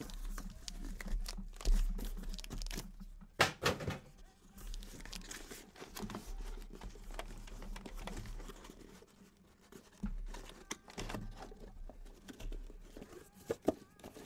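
Cardboard trading-card boxes and their packaging being handled and opened: irregular crinkling, rustling and tearing, with a few louder knocks in the first few seconds.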